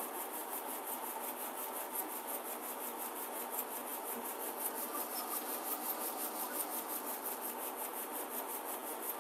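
Roll-fed label finishing machine running steadily: an even mechanical hiss with a faint, fast, regular ticking.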